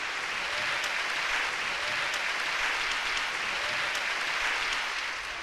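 Audience applauding steadily: a dense wash of many hands clapping.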